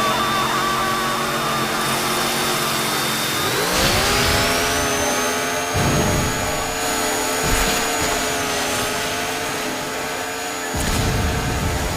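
Chainsaw engine sound effect running, then revving up about four seconds in and holding a high, steady whine. A few low thumps come through over it.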